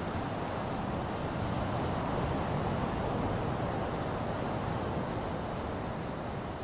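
Ocean surf: a continuous wash of breaking waves that swells gently and eases off slightly near the end.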